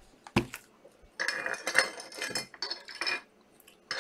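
Trading card packs and cards being handled: a single knock, then from about a second in a run of irregular crinkling and clattering.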